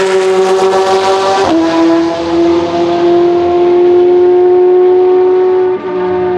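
Judd GV4 V10 of a 2002 Dome S101 prototype racing car, a loud high-pitched scream at high revs. About a second and a half in, the pitch drops suddenly in what sounds like a quick upshift, then climbs slowly as the car pulls in the next gear.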